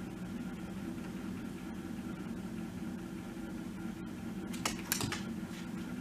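Grapple truck's engine running steadily, driving the knuckle-boom loader's hydraulics, with a few sharp cracks near the end as the grapple grips and lifts a bundle of logs and branches.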